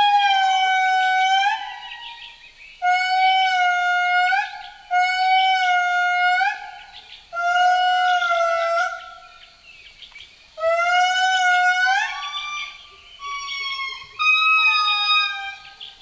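Indri song: a series of long, loud wailing notes, each held for a second or two and bending upward at its end. In the second half the notes climb higher, come quicker and overlap.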